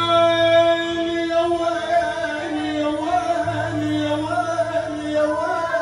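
Arabic vocal music: a singer holds one long note with no words, steady at first and then wavering in melismatic turns from about two seconds in, over a low sustained accompaniment.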